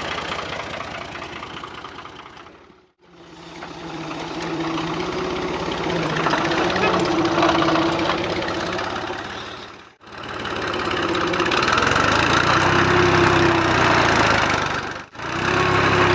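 A small motor running with a steady buzz, in short sections that fade out and back in three times.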